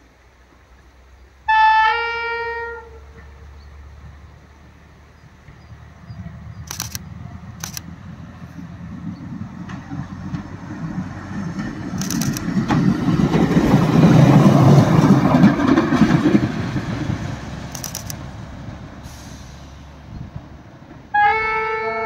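Heritage diesel railcar sounding a short high-low two-tone horn blast, then its diesel engine running as it pulls past, growing louder to a peak and fading away, with the wheels clicking over rail joints. A second horn blast starts near the end.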